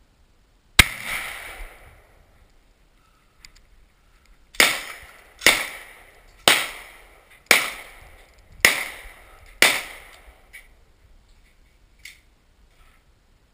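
Seven gunshots close by: a single shot about a second in, then a run of six about a second apart, each trailing off in a short echo. A few faint clicks fall between them.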